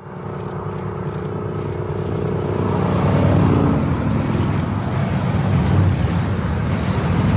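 Motorcycle engines running, louder over the first three seconds and then steady.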